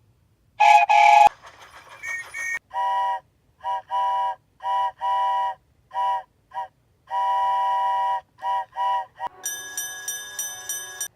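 Steam locomotive whistle effects: a loud double blast about half a second in, then a string of short and longer toots of a chime whistle sounding several notes at once, in an uneven rhythm. Near the end a bright, rapidly repeating ringing takes over.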